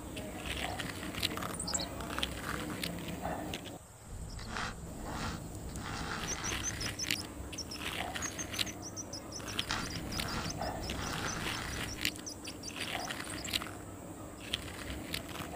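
Small birds chirping in rapid high series, with soft scraping and crunching as a small metal blade on a stick is dragged through dry sand.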